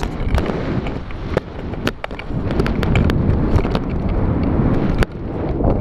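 Airflow of paragliding flight buffeting an action camera's microphone: a loud, gusting low rumble, with many scattered sharp clicks and knocks.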